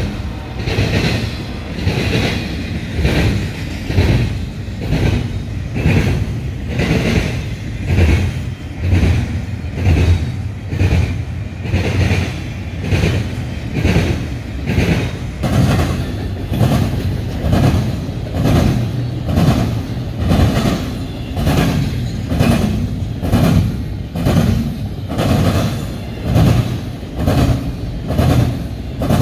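Double-stack intermodal container freight train rolling past: a steady low rumble of the cars with a regular clickety-clack of wheels over the rail joints, about one clack a second.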